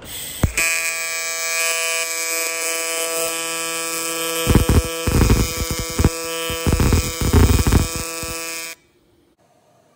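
AC TIG welding arc on aluminum, a loud steady buzz that starts about half a second in. It crackles in spells through the second half while tacking, then cuts off suddenly near the end as the arc is broken.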